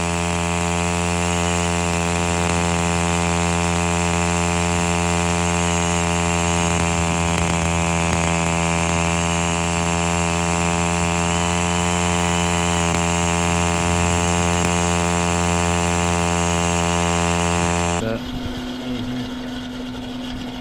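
Small gasoline engine of a septic tank mixer running steadily at high speed, blending up the tank's sludge. It cuts off sharply near the end, leaving a quieter steady hum.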